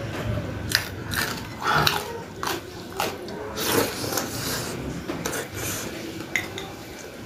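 A person chewing close to the microphone: irregular crunches and wet clicks from a mouthful that includes raw red chili.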